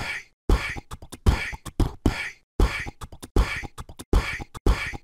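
Outro beat: a short beatbox-like percussive pattern of deep kick hits and hissy snare-like bursts, looping about every two seconds.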